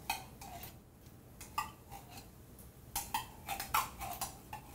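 Spoon scraping and tapping tomato paste out of a small metal can: a run of short metallic scrapes and clicks, thickest in the second half.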